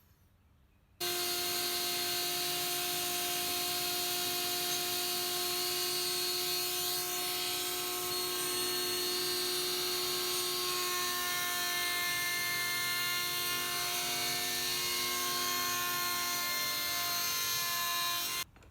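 Router running in a router table with a straight bit, enlarging the bearing holes in wooden wheel discs: a steady motor whine with cutting noise. It starts abruptly about a second in, its pitch pattern shifts about halfway through, and it cuts off just before the end.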